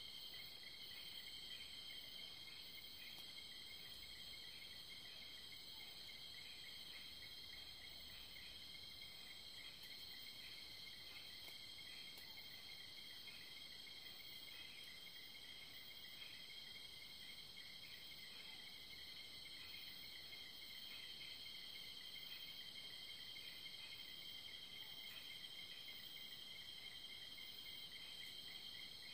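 Faint night chorus of crickets and other insects: steady high trills at several pitches, with a lower chirp pulsing in a quick regular rhythm underneath.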